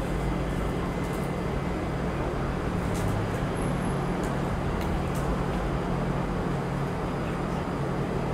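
Steady city traffic noise: an even hum with a constant low drone underneath.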